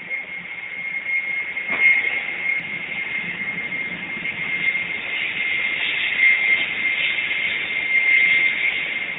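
Jet airliner running at the stand: a steady high-pitched whine over constant hiss, holding one pitch.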